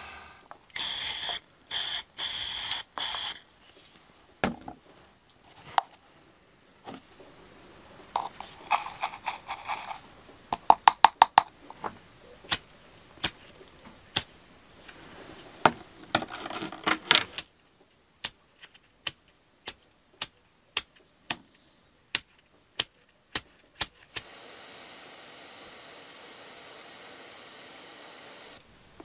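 Aerosol spray-paint can fired in four short, loud bursts, then a long series of sharp clicks and taps, a quick run of them and then spaced-out ones, as a paintbrush loaded with black paint is flicked to spatter speckles. Near the end a quieter steady hiss runs for about four seconds.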